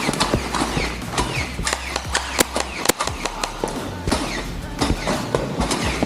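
Foam-dart NERF blasters firing in a close-range fight: a fast string of sharp snaps and thumps, over a steady low bass.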